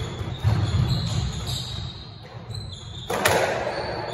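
A rally on a squash court: racquet hits on the ball and the ball knocking off the walls, with the loudest, sharpest hit about three seconds in.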